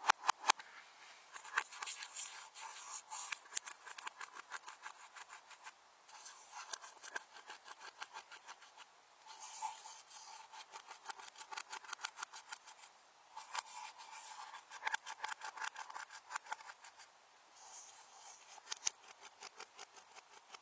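Slime being squished and kneaded by hand, giving rapid runs of small sticky clicks and pops, with short pauses every few seconds.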